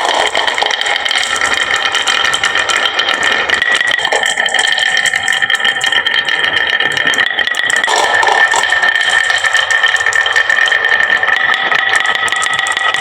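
Many marbles rattling and clattering down a HABA wooden slope marble run, a dense, unbroken stream of small clicks with a steady high ringing underneath.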